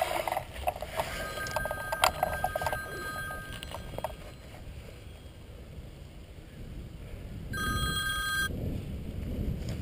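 Mobile phone ringing: a steady two-tone ring for about three seconds starting about a second in, then a shorter, brighter ring near the end.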